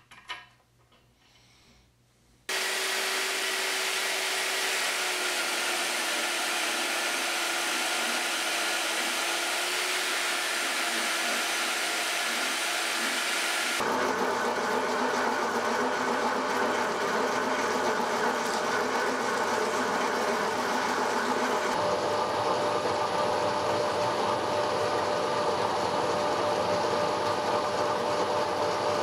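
A few light clicks of metal parts being handled, then a milling machine running steadily, an end mill cutting into metal under a spray of coolant. Its steady hum shifts twice, about halfway through and again later.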